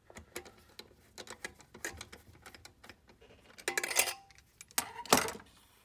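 Small metallic clicks and clinks of a quarter-inch nut driver working a screw into the metal frame of a slide projector's focus motor mount. Two louder metal clatters come a little past the middle and again near the end.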